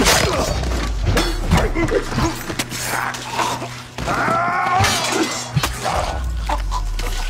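Film sword-fight sound effects: repeated sharp blade clashes and hits, the hardest right at the start, with a drawn-out pitched cry about four seconds in, over a low droning score.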